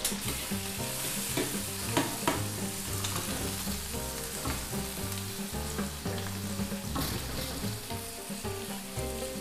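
Frozen french fries deep-frying in a pan of hot oil: a steady sizzle, with a few light clicks.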